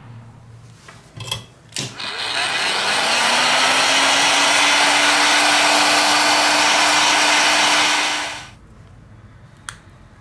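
Hot-air blower switched on: its fan motor spins up with a rising whine, then runs steadily with a loud rush of air for about six seconds before winding down. A couple of clicks just before it starts and a single tick near the end.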